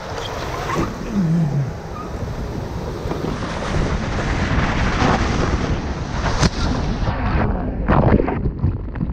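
Rider sliding down a mat racer waterslide on a foam mat: steady rushing of water and wind buffeting the microphone. Near the end it turns into choppy splashing as the rider hits the water.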